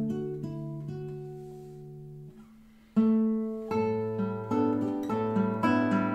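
Solo classical guitar by luthier Tobias Braun, fingerpicked, playing a slow lullaby. Its notes die away almost to silence a little over two seconds in. A loud chord about three seconds in starts a steady flow of plucked notes over a low bass note.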